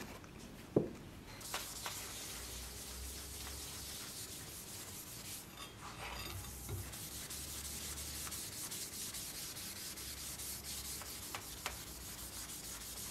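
A rubber-gloved hand rubbing briskly back and forth over a hard piece, a steady scrubbing hiss. A single sharp knock comes just before it, about a second in.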